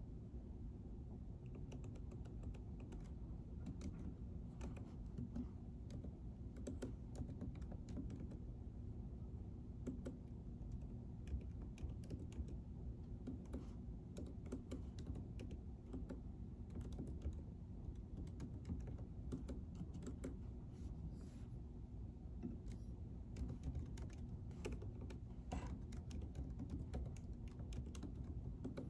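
Typing on a computer keyboard: irregular, fairly quiet key clicks throughout, over a steady low room hum.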